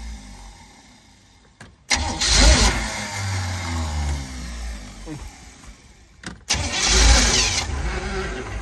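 Boat's 350 Chevy V8 inboard engine running. It fades away over the first second and a half, then comes on suddenly loud twice, each time after an abrupt break, with the pitch rising as it revs. It has a weird howl that the owner puts down to the OMC outdrive.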